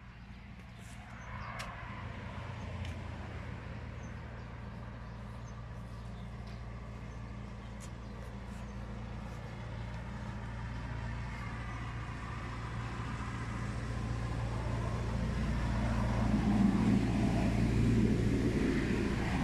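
A motor vehicle's engine running steadily with a low hum, getting louder over the last few seconds.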